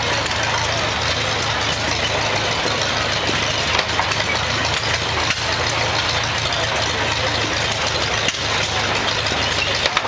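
A 1937 Farmall F-12 tractor engine running steadily, belt-driving a 1937 International square hay baler. The baler's mechanism clatters, with a few sharper knocks a second or more apart.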